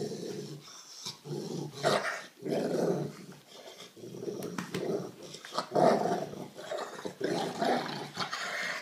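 Rottweiler/pit bull mix dog growling while being petted: a series of low growls, each about half a second to a second long, with short breaks between.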